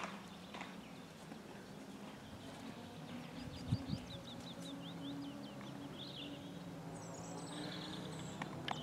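Songbirds calling: a quick run of short chirps a few seconds in and more high calls near the end, over a steady low hum, with one dull thump about three and a half seconds in.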